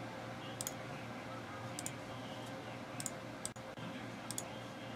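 Faint clicks of a wireless keyboard's touchpad being pressed, about half a dozen spread over a few seconds, some in quick pairs, over a low steady hum.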